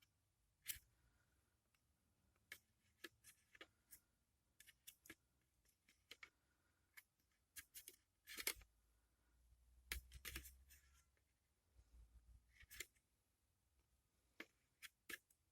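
Faint, scattered clicks and taps of the kit's small plastic scoop against the plastic trays as jelly balls are scooped out, with a couple of brief scraping sounds about eight and ten seconds in.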